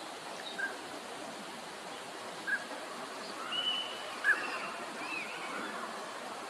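Northern pintails calling: a handful of short whistled calls, the loudest a little past four seconds in, over a steady rushing background.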